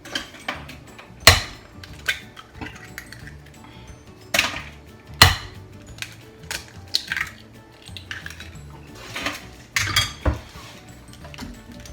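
Kitchen utensils clinking and knocking against a mixing bowl while cheesecake filling is mixed: an irregular run of sharp clinks, the two loudest about a second in and about five seconds in.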